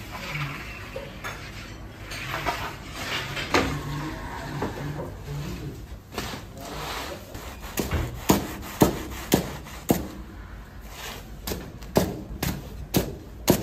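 Wooden bread peels scraping and knocking as long pides are slid out onto the counter. From about halfway through, a large cleaver chops through the baked pide onto the counter in a run of sharp strokes, roughly two a second.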